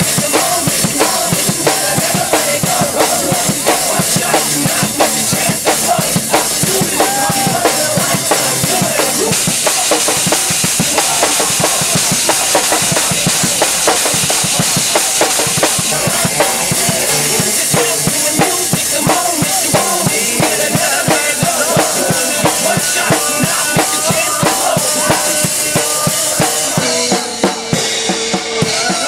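Drum kit played fast and hard, with bass drum, snare and crashing cymbals, over a backing track played through a loudspeaker.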